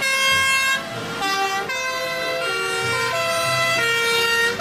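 German-style two-tone fire engine sirens ("tatütata") from a convoy of fire engines. Each siren steps back and forth between two notes about every half second, and more than one siren sounds at once, so their notes overlap.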